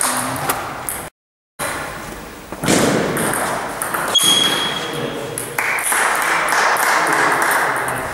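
Table tennis ball ticking back and forth off bats and table in a rally. The sound cuts out completely for about half a second, a second in.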